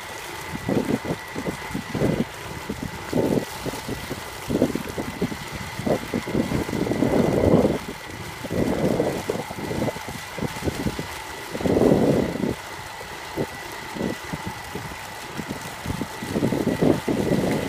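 A truck-mounted water pump unit running steadily with a constant high whine, while irregular gusts of wind buffet the microphone.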